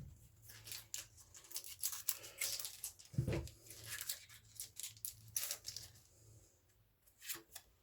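Crinkling and rustling of plastic card sleeves and foil booster-pack wrapping being handled, a run of short, sharp crackles with a soft thump about three seconds in, thinning out near the end.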